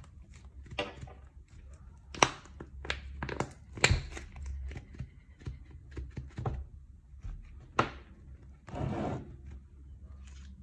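Plastic bottle packed with kinetic sand being handled and pressed on a table: scattered sharp knocks and thunks of the plastic, the loudest about 2, 4 and 8 s in, with short bursts of crinkling plastic and scraping sand, one near the end.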